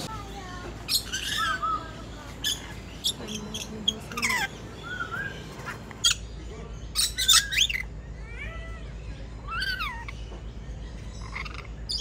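Lories and lorikeets calling: sharp squawks and short chirps mixed with whistled notes that rise and fall, several birds at once, with a louder run of squawks about seven seconds in.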